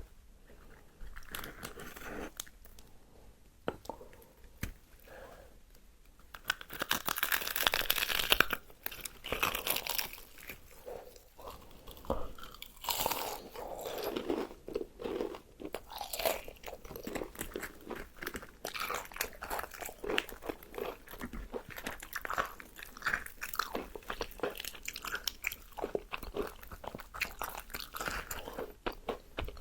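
Close-up eating sounds of crispy fried chicken: crunchy bites of the fried coating and chewing. The first few seconds hold quieter, scattered crunches, then from about six seconds in the crunching becomes loud and continuous.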